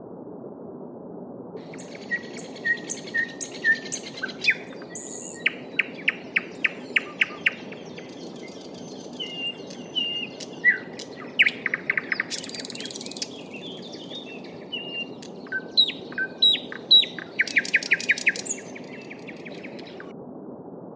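Songbirds singing over a steady babbling stream. Many short whistled notes and several fast rattling trills start a couple of seconds in and stop shortly before the end, leaving only the stream.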